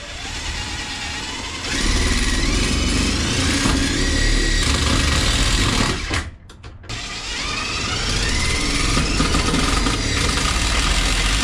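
Power drill driving screws through a steel blower rack into a plywood wall, in two long runs with a short pause about six seconds in, its motor whine rising as it runs.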